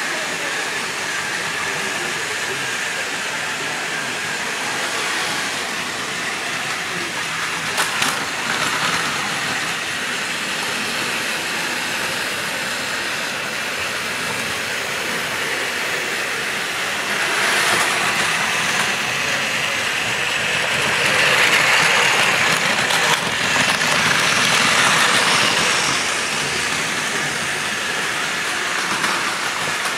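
Battery-powered Plarail plastic toy trains, among them a toy monorail, running on plastic track: a steady whir of small motors and rattle of plastic wheels. It grows louder for several seconds in the middle, with a couple of sharp clicks about eight seconds in.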